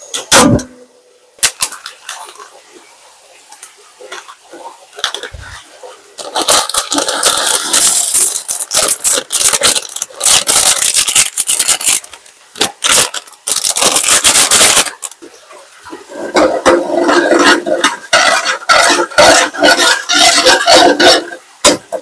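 Kitchen food-prep handling sounds: a sharp knock at the start, then loud, dense scraping and rubbing from about a quarter of the way in, followed by irregular clattering and clinking of utensils and dishes.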